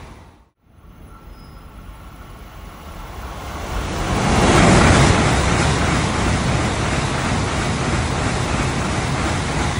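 A Tokaido Shinkansen bullet train passing through the station at high speed without stopping. A rush of air and wheel noise swells as it approaches, is loudest about four to five seconds in as the nose goes by, then stays steady and loud as the long train streams past. Just before the swell there is a brief dropout where the sound cuts out.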